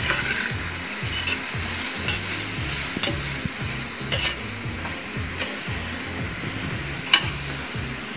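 Sliced onions sizzling in hot oil in a pressure cooker pot as they are sautéed, stirred with a slotted metal spatula. The spatula scrapes and clicks against the pot now and then, sharpest a little after four seconds and about seven seconds in.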